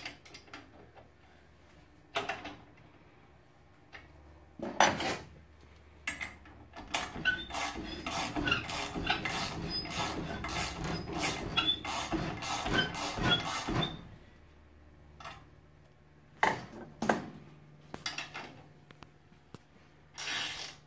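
Small three-roller slip roller being worked by hand. Scattered metallic clicks and clanks, then several seconds of dense rattling and scraping as a curved strip of 12 gauge steel is rolled through the rollers, then a few more clicks.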